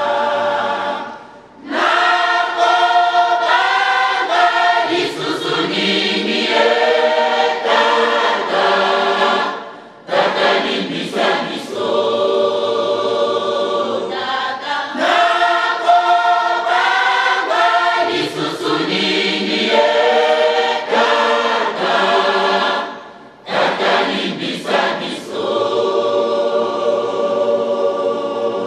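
Church choir singing a hymn in long sung phrases, breaking off briefly three times.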